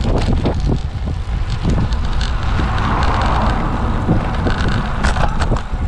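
Wind buffeting the microphone of a camera mounted on a road bike's handlebars, over a steady rumble of tyres on rough asphalt. Many short knocks come from the bike jolting over the cracked road surface.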